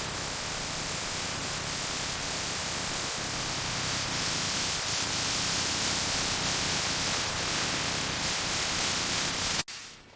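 A steady, even hiss that cuts off abruptly near the end.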